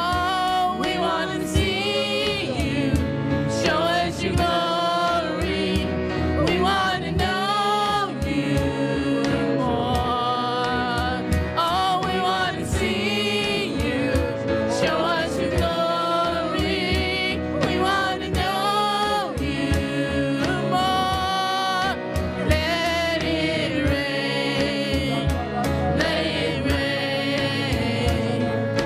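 A congregation singing a gospel worship song with a band behind it, voices and instruments going steadily together.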